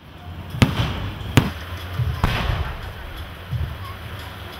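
Fireworks going off: three sharp bangs a little under a second apart, over a steady low hum and background noise.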